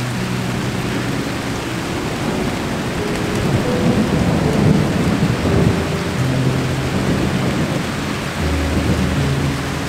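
Steady rain falling on leafy foliage, with a low rumble of thunder swelling about four seconds in and easing off by about seven seconds. Soft background music with held notes sits underneath.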